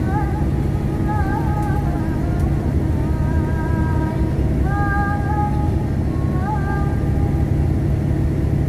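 A young girl sings a slow, ornamented melody into a handheld microphone: long held notes with wavering turns, in several phrases with short breaks, ending about seven seconds in. Under it runs the steady drone of a bus engine.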